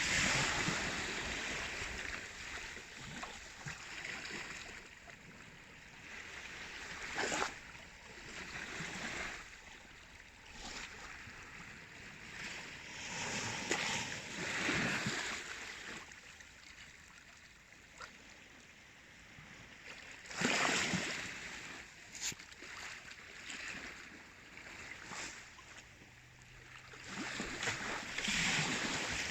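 Baltic Sea waves washing and surging in irregular swells a few seconds apart, with a few short sharp splashes.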